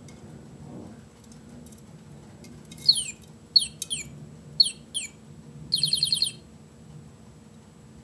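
Male budgerigar calling: a run of five or six sharp chirps, each falling steeply in pitch, then a short buzzy, rapidly pulsed chattering trill. These are his courtship calls to a plastic toy bird.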